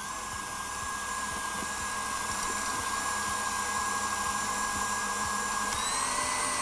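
Electric mixer running steadily as it whips double cream toward soft peaks, a steady motor whine that steps up slightly in pitch near the end.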